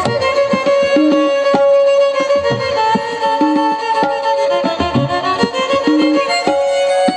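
Background music with a bowed string melody held on long notes over a steady hand-drum beat.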